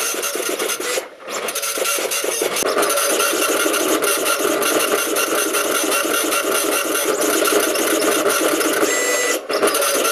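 PSI PP-404 high-speed dot matrix printer printing a listing in its 500-character-per-second data font: a steady, fast, rasping buzz from the print head as the paper feeds through. The sound breaks off briefly about a second in and again near the end.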